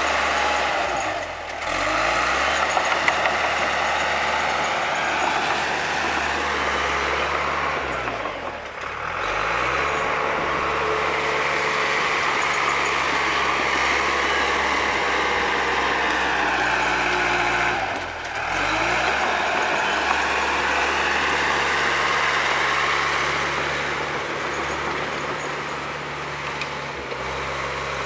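Bulldozer's diesel engine working steadily. Its revs dip briefly and recover three times: about a second in, about nine seconds in, and at about eighteen seconds.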